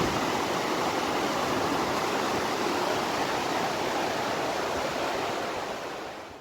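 Steady rushing of river water flowing over rocks, fading away near the end.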